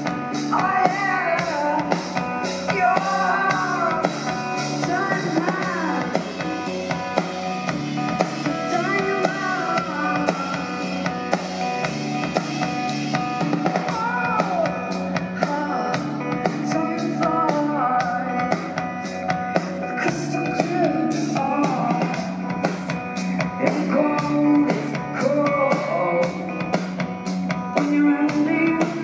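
Live rock band playing: a woman's lead vocal sung over a steady drum kit beat, with bass and guitar.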